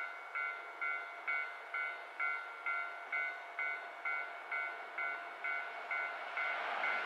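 Japanese railway level crossing warning bell ringing its repeated two-tone ding, about two strikes a second, warning of an approaching train. Near the end a rising rush of noise builds under it as the train approaches.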